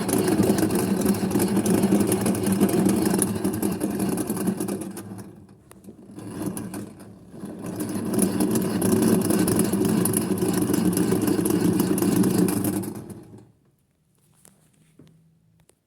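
Small electric motor of a 1960s Hoovermatic toy twin-tub washing machine running, fading out about five seconds in with a few brief surges, then running again for about five seconds before it stops near the end.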